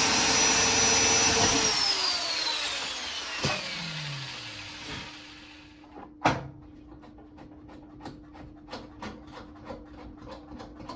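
Power drill running at speed while boring a hole, then let go and spinning down with a falling whine over a few seconds. A sharp knock about six seconds in, then a string of light clicks and taps.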